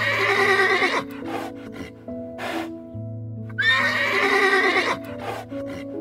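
A horse whinnying twice, each call about a second long with a quavering pitch, over background music with sustained notes.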